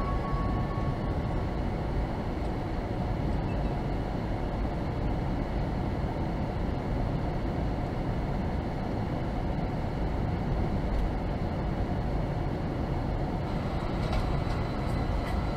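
Car cabin noise while driving slowly: a steady low rumble of engine and tyres on the road.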